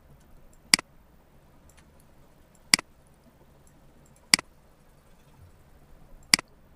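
Four sharp computer mouse-button clicks, about two seconds apart, over a faint steady low hum.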